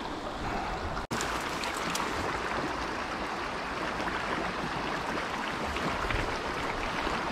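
Small, shallow stream flowing over rocks, a steady rush of water that cuts out for an instant about a second in.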